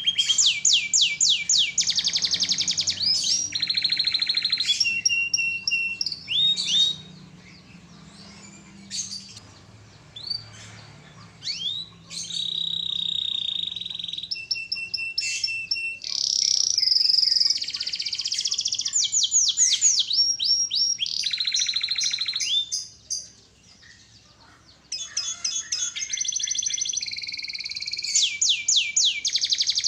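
Domestic canary singing a long, lively song of fast rolling trills, sliding notes and held whistled tones. The song breaks off into shorter phrases about a quarter of the way in and drops out briefly about three quarters through.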